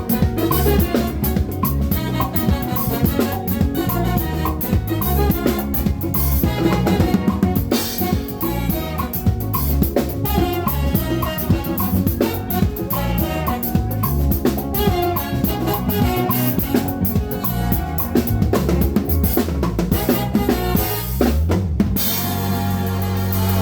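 Band music with a full drum kit (snare and kick drum) over a moving bass line. About 21 seconds in, a low note glides upward and the music settles into held low notes.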